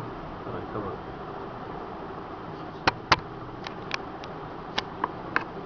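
Steady room hum with about eight short, sharp clicks and taps, clustered from about three seconds in to near the end.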